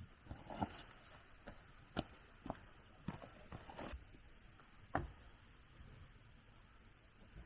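Irregular knocks and thuds on wood, about a dozen over some five seconds, the sharpest about two seconds in and five seconds in.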